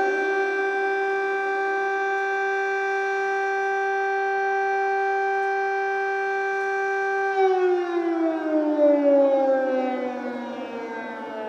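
Civil defense siren sounding Ukraine's air raid alert: one steady tone that holds its pitch, then about seven seconds in starts to wind down, falling slowly in pitch.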